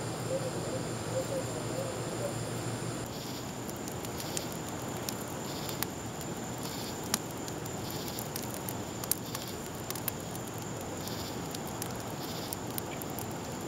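Wood campfire crackling with sparse sharp pops, over steady insect calls pulsing about every two-thirds of a second.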